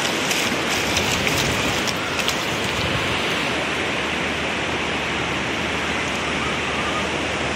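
Steady hiss of ocean surf washing over the beach, with a few faint crackles in the first two seconds.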